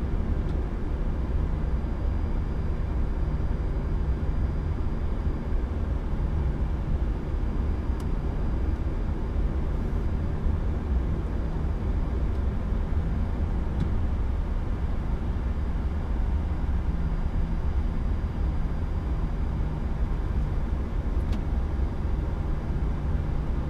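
Steady low rumble and hiss on the flight deck of an Airbus A340-300 taxiing slowly onto its stand, its engines at idle. A few faint clicks sound through it.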